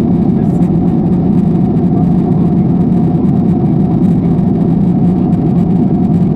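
Cabin noise of a Boeing 747-8 in cruise: a steady roar of airflow and its GEnx-2B engines, with a faint steady hum above it.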